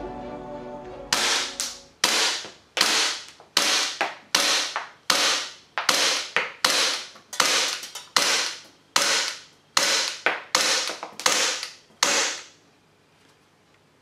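WE Tech Big Bird gas blowback airsoft pistol (M&P replica) being fired semi-auto: about fifteen sharp shots at a steady pace, a little under a second apart, each with the slide cycling. It stops when the slide locks back after the last round.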